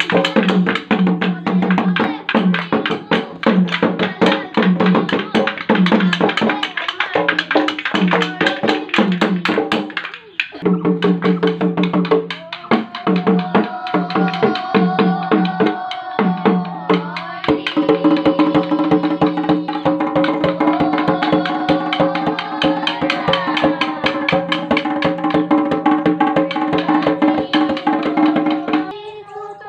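Bihu husori music: a dhol drum beats a fast rhythm with bamboo clappers clacking along, and voices sing together over it. The playing drops out briefly about ten seconds in, and in the second half the voices hold long notes over the continuing beat.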